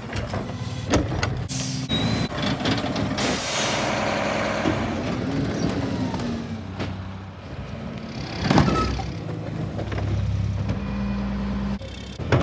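Rear-loader garbage trucks at work: engines running, rising and falling as cart tippers dump carts into the hoppers, with sharp clanks of carts and a hiss of air about three seconds in. The sound changes abruptly several times as short clips cut from truck to truck.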